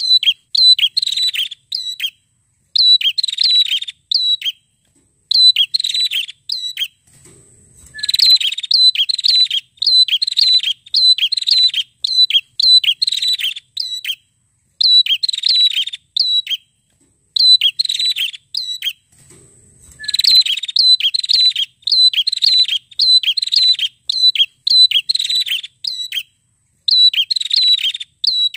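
Caged rufous-headed prenjak singing loudly and persistently: fast runs of sharp, high chirps in bursts of a second or two, with short pauses between.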